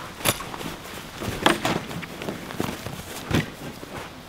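Scattered knocks and rustles of a person moving about among a pile of camping gear, with about a dozen irregular sharp knocks.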